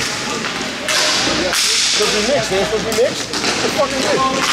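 Hockey skates scraping and carving the playing surface in sharp hissing bursts during play, several times, with players' calls in the background.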